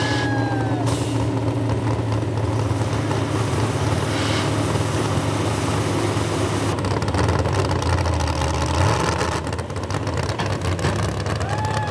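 A pickup's 440-cubic-inch small-block V8 running steadily under load while pulling a weighted sled. Its note drops lower about nine seconds in.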